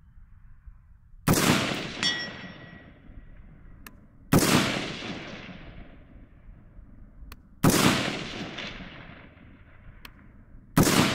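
Four AR-15 rifle shots about three seconds apart, each echoing away over the range. Shortly after the first and last shots comes a faint metallic ring: a hit on a steel target at 200 yards.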